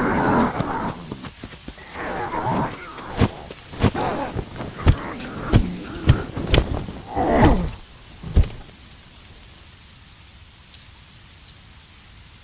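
Sharp thumps and knocks on a steel-framed canvas camping cot, about eight of them between three and eight and a half seconds in, as it is pounded and slammed. A loud cry falling in pitch comes right at the start and again about seven seconds in, and after the last knock only a faint steady hiss is left.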